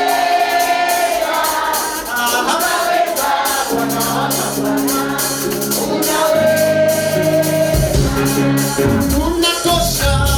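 Gospel worship music: a choir singing over a band with percussion and tambourine.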